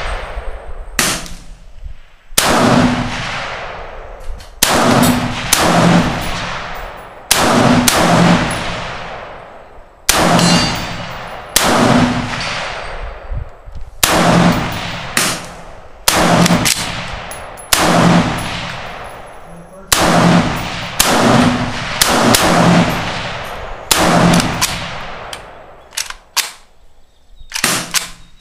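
Semi-automatic AK-pattern rifle fired repeatedly, about one shot every one to two seconds with some quick pairs, each report ringing on after the shot.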